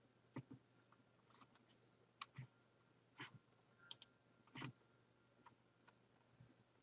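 Near silence broken by about a dozen faint, irregular clicks from a computer mouse and keyboard.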